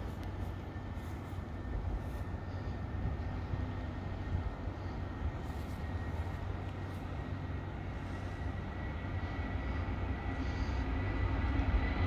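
Boeing 757's Rolls-Royce RB211 jet engines at takeoff power on the takeoff roll: a low rumble with a faint steady whine, slowly growing louder toward the end.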